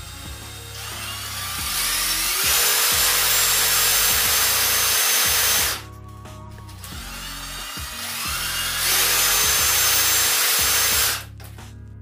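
Two cordless impact drivers run with no load, twice: each time the motors whine up to full speed over about two seconds, hold a steady high whine for about three seconds, then stop suddenly.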